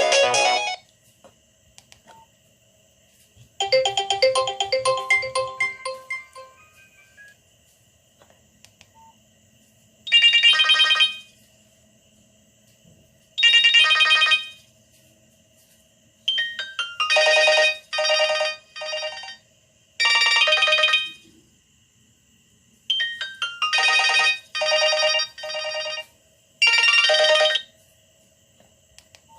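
Nokia 6085 mobile phone playing ringtones through its loudspeaker. One tune ends at the very start and a short melody plays about four seconds in. From about ten seconds in, a ringtone sounds in repeated bursts separated by pauses of a second or two.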